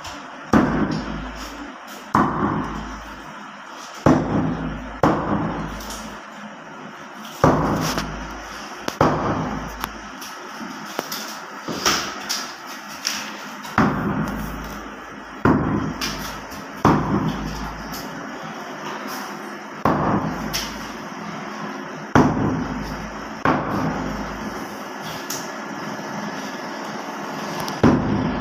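Butcher's cleaver chopping through beef and bone on a wooden log chopping block: heavy, sharp chops, one every one to two seconds.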